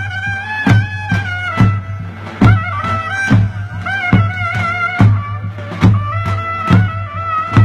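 Live davul drum and a shrill reed pipe, typically a zurna, playing folk dance music: a wavering, ornamented melody over heavy drum beats a little under one a second, with lighter strokes between them.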